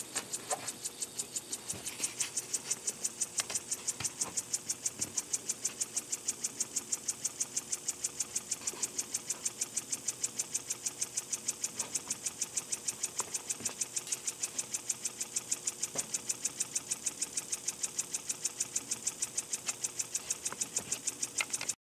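Small single-cylinder oscillating model steam engine running on compressed air: a rapid, even chuffing of exhaust with a hiss. It picks up and gets louder about two seconds in, then cuts off suddenly at the end.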